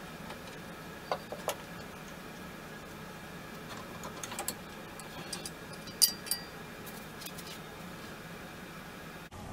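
Light clicks and knocks of a rifle's steel barreled action being handled in a wooden gunstock during test-fitting, with one sharper metallic click about six seconds in, over a steady low hum.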